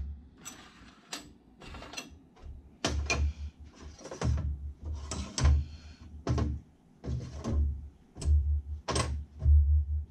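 Small plastic and metal phone-mount parts and clamps being picked up and set down on a tabletop: irregular clicks and clatter, many with a dull thump from the table.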